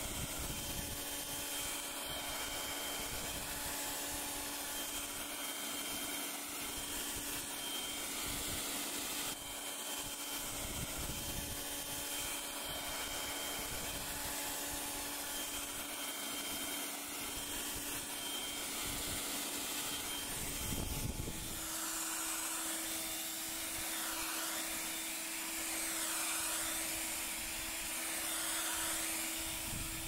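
Bosch UniversalGardenTidy 3000 electric leaf blower-vacuum running in blower mode: a steady motor whine over a rush of air as it blows wet leaves across wet stone paving. About two-thirds of the way through, the motor note steps up and the air rush gets louder and hissier.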